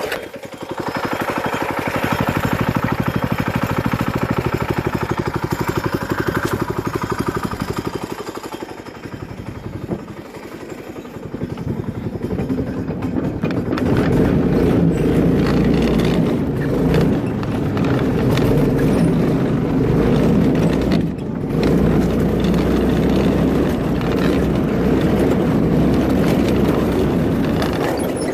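Go-kart engine running as the kart is ridden. It eases off around ten seconds in, then comes back louder from about fourteen seconds.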